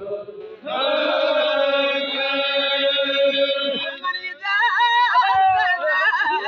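Chogan devotional chanting: voices hold one long sung note for about three seconds, then a lead voice sings a wavering, ornamented melody.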